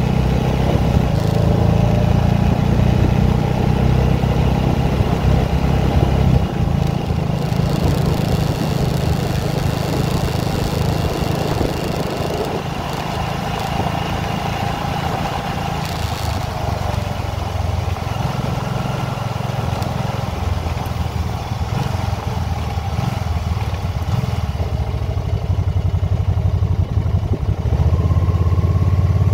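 Can-Am motorcycle's engine running under way, mixed with wind and road noise. The engine note eases a little partway through and grows louder again near the end.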